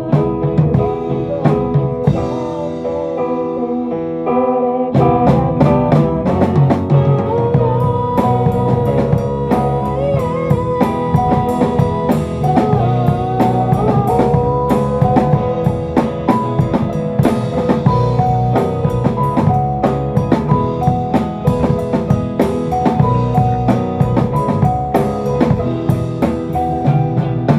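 Rock band music with no vocals: drum kit, bass and guitars playing, with a lead melody that slides in pitch. The drums thin out for a few seconds near the start, then the full band comes back in.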